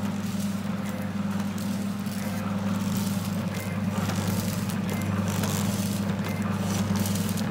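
Automatic powder sachet packing machine running: a steady hum with faint clicking from its forming, sealing and cutting mechanism.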